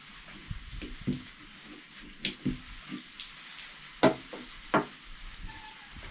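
Light clicks, scrapes and rustling from hands and a screwdriver working carbon brushes into the brush holders of a DWT angle grinder. Three sharper clicks come in the last four seconds.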